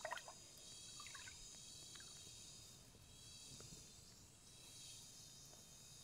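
Near silence: faint outdoor background with a steady faint high hiss, a brief faint sound right at the start and a few tiny ticks.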